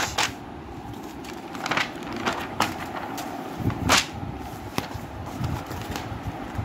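Textbook pages being flipped: a series of short paper flicks and rustles, the loudest about four seconds in, over low handling noise.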